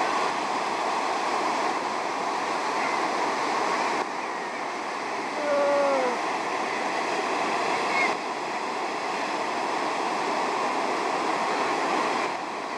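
Ocean surf washing steadily on the beach, with a short falling call, a single cry that drops in pitch, about halfway through.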